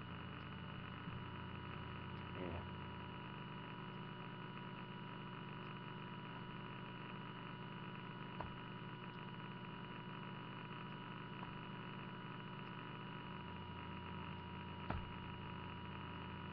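Steady electrical hum of several pitches over a light hiss, with a few faint clicks.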